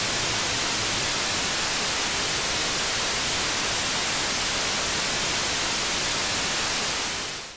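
Loud, steady white-noise static hiss like an untuned analog TV, cutting off suddenly at the very end.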